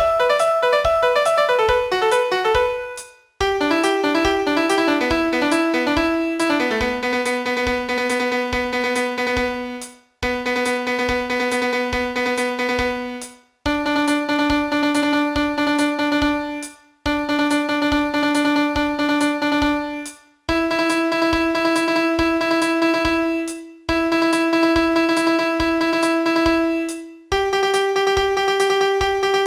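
Electronic piano sound playing a melody: a run of quick notes, then long held notes of about three seconds each with short breaks between them, over a fast, even ticking beat.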